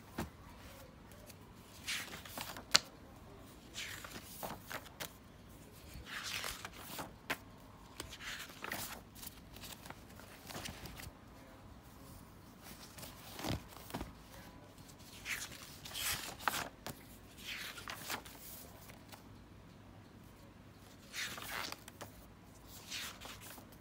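Paper pages of a spiral-bound sketchbook being turned and handled: scattered brief swishes and rustles, with one sharp click about three seconds in.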